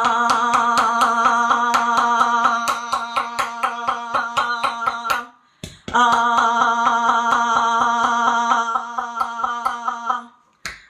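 A person holding a long, loud 'ahhh' on one steady pitch while pounding the chest with the fists about four or five times a second, so that each thump jolts the voice. The vowel breaks about five seconds in for a breath and starts again. This is a chest-pounding technique meant to shake phlegm loose from the lungs.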